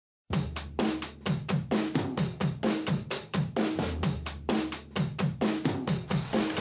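Background music: a steady drum-kit beat with kick drum, snare and cymbals, starting after a brief silence.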